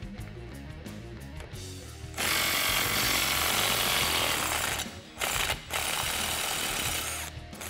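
Cordless impact wrench hammering loose a rusted 19 mm U-bolt nut on a leaf-spring plate. It runs in three bursts: one of nearly three seconds starting about two seconds in, a brief one, then another of about a second and a half. Background music plays underneath.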